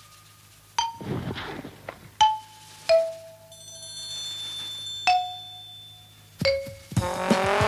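Sparse background music: single struck, bell-like notes a second or so apart, each ringing briefly and stepping lower in pitch, with a faint high held chord in the middle. Fuller music swells in near the end.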